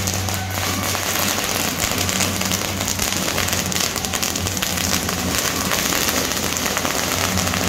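A long string of firecrackers crackling continuously, with a steady low engine hum beneath.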